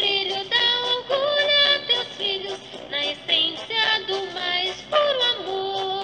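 A municipal anthem sung in Portuguese with instrumental accompaniment; the voice holds long notes with vibrato.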